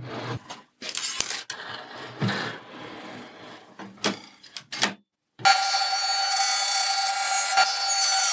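Light knocks and rubbing as the table saw's rip fence is set with a steel ruler, then, about five seconds in, the table saw starts up and runs with a steady whine while a board is fed into the blade.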